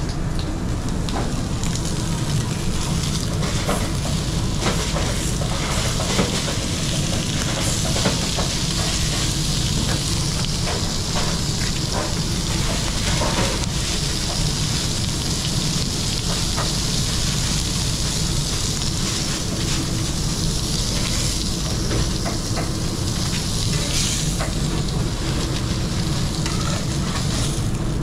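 Food sizzling in a hot frying pan, the sizzle growing stronger through the middle, over a steady low rumble, with occasional light clicks.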